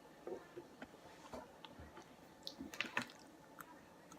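Quiet handling noise while crafting a paper squishy: a few faint, scattered small clicks and taps.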